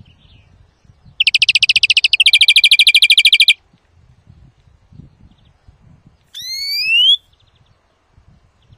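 European greenfinch calling: a loud, very fast trill of rapidly repeated high notes, broken briefly in the middle and lasting about two seconds. After a pause comes a single rising whistled note about two-thirds of the way in.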